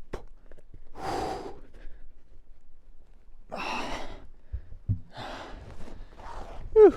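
A man breathing hard, with heavy breaths every second or so, from the strain of hauling a heavy log. Two dull low thuds come about halfway, and near the end there is a short grunt falling in pitch, the loudest sound.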